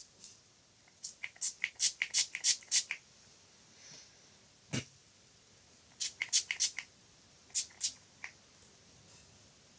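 Close-miked ASMR wet mouth sounds: quick runs of sharp, moist clicks and smacks in two bursts, then a few single clicks, with one duller thump in between.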